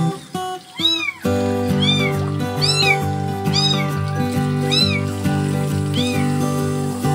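Unweaned kitten mewing repeatedly, six or seven short high cries about a second apart, each rising and falling in pitch, over background music.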